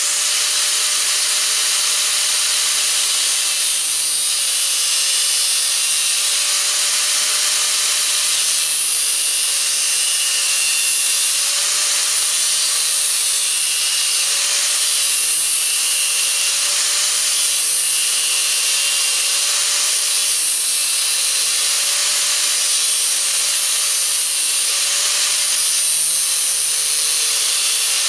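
Angle grinder with a thin cutting disc running steadily and cutting slots into a steel hinge barrel, a hiss of disc on metal over the motor's whine, whose pitch wavers slightly under load.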